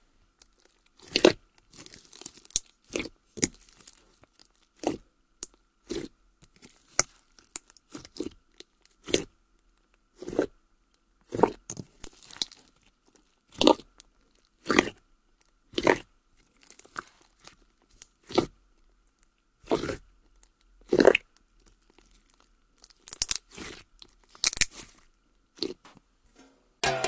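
Fluffy Nivea creme slime being poked and squeezed by hand, giving short, sharp crackling pops at irregular intervals, roughly one a second and sometimes a few in quick succession.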